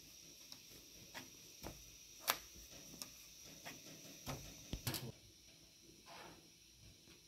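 Faint, irregular clicks and ticks of hand-knotting yarn onto the warp of an upright rug loom, the blade snapping against the strings and cutting the yarn, with a quick cluster of louder clicks about four to five seconds in.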